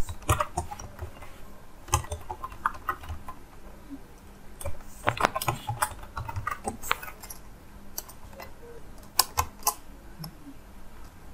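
Typing on a computer keyboard: irregular runs of quick keystroke clicks with short pauses between them.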